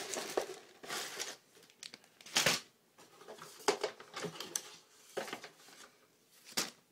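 Packaging of a plastic model kit being handled: crinkling and rustling in irregular bursts, loudest about two and a half seconds in and again near the end.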